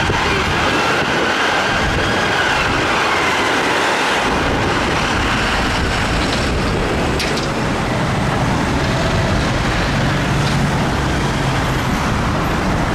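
Busy city street traffic: a steady wash of road noise and vehicle engines. A siren's wail fades out in the first couple of seconds, and a low engine hum from a nearby vehicle comes in about ten seconds in.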